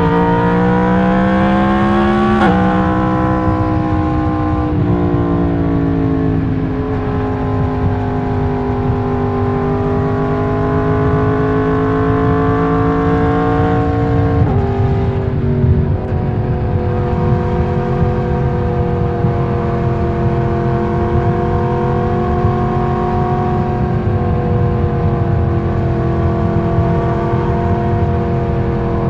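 Yamaha MT-10's crossplane inline-four (CP4) engine under way, heard from the rider's seat. It revs up and drops in pitch at quick gear changes about two and a half and five seconds in, then pulls steadily in the mid range. Another change comes around fifteen seconds in, and it runs fairly evenly after that.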